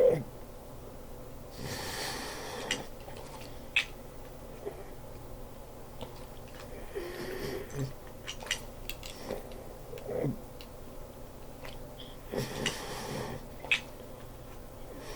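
Small plastic Lego pieces clicking and tapping as they are handled and fitted together, with soft rustles about two, seven and twelve seconds in.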